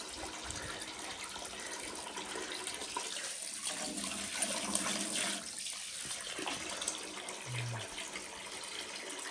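Water from a garden hose pouring into a partly filled plastic tub, a steady splashing and bubbling as the tub fills.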